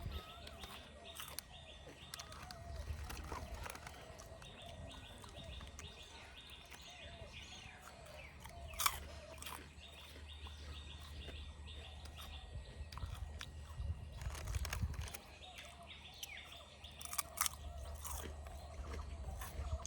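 Crunching and chewing of packet snacks close to the microphone, with a few sharp clicks from handling, the loudest about nine seconds in. Behind it, insects chirp in a fast, even rhythm and birds call.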